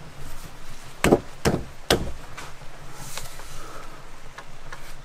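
Wooden log rafters knocking against each other as a rafter is worked into place in the roof frame: three sharp wooden knocks about a second in, then a few fainter taps near the end.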